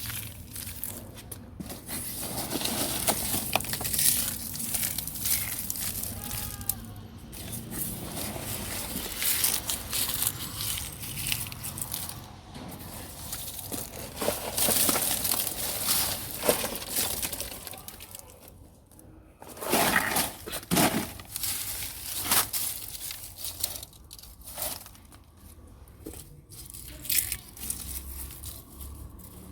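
Dry eggshells being crushed by hand and scattered, an irregular crackling and crunching, with a few louder knocks about twenty seconds in.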